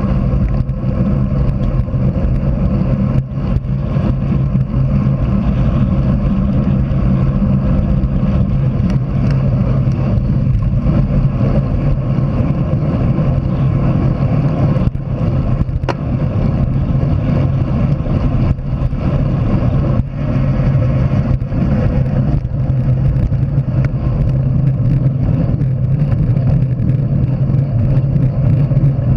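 Steady loud wind rush over a bicycle-mounted action camera's microphone while riding at race speed, with a few brief knocks from the bike and road.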